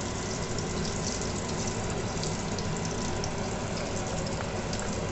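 Hot oil and ghee sizzling in a kadhai with whole spices (cloves, black peppercorns, cinnamon, broken dried chillies) frying in it, stirred with a wooden spatula: a steady hiss with scattered faint crackles.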